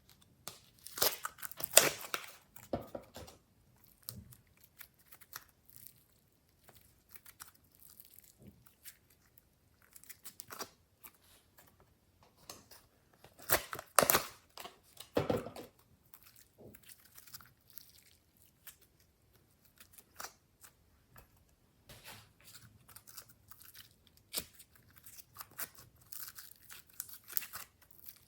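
Glossy slime being stretched, pressed and squished by hand, giving irregular sticky crackles, pops and squelches. Louder bursts of crackling come about a second in and again about fourteen seconds in, with sparse clicks between.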